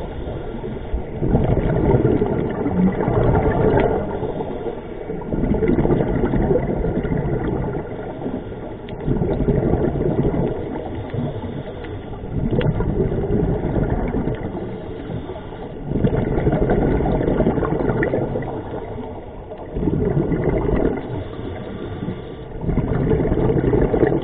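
Scuba diver breathing through a regulator underwater: surges of exhaled bubbles every few seconds over a steady low rumble.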